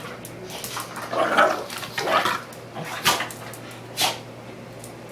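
Two puppies play-fighting, making short, irregular dog noises. The loudest cluster comes about a second and a half in, and brief sharp sounds follow near three and four seconds.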